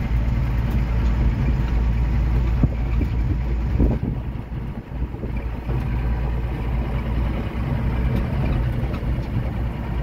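A truck driving slowly, its engine running with a steady low rumble, heard from inside the cab with the side window open. The sound dips briefly about four to five seconds in.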